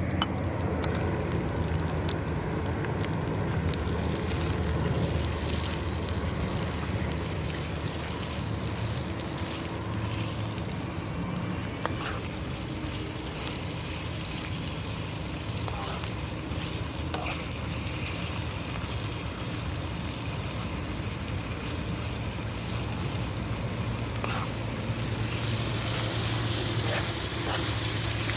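Food sizzling as it fries in a pan, with a few light clicks of a stirring utensil; the sizzle grows stronger near the end.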